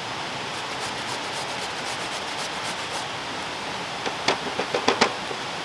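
Sweet potato being shredded on a metal box grater: a quick run of rasping strokes, then a few sharp knocks and taps about four seconds in. A steady rushing noise lies underneath.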